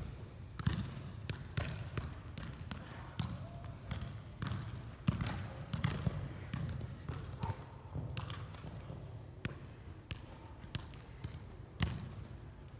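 Soccer ball being juggled: irregular thuds of foot and thigh touches on the ball, about one a second, over a steady low rumble.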